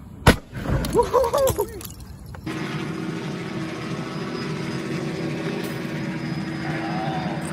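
A sharp click, a short pitched call or voice, then a steady hum of a vehicle running that starts about two and a half seconds in.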